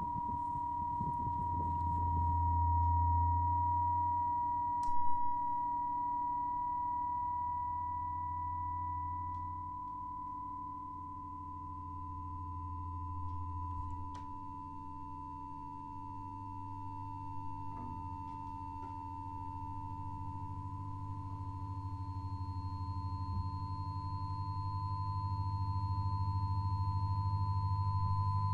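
Experimental drone from an electric guitar, distortion pedal and mixer rig: a steady high pure tone held over a low hum that swells and grows louder near the end. A brief crackle about five seconds in, and a few faint clicks.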